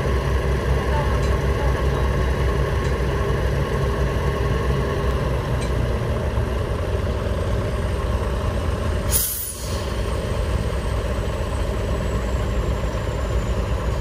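Heavy diesel machinery running steadily, with a short sharp hiss of released compressed air from a truck's air system about nine seconds in, followed by a faint falling whistle.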